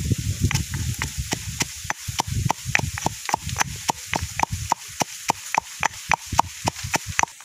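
Guinea fowl meat frying in a pan while being stirred, with sharp crackles and pops of hot oil several times a second. The low stirring noise stops about five seconds in while the popping goes on.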